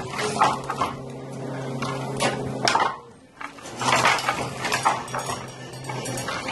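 Upright hand loom being worked: irregular clattering and clinking strokes as its parts knock together, over a steady low hum.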